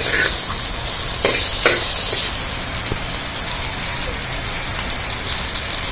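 Shallots, tomato, dried red chillies, ginger, garlic and spices sizzling in hot oil in a clay pot as they sauté. A steel ladle scrapes and stirs them a few times in the first two seconds.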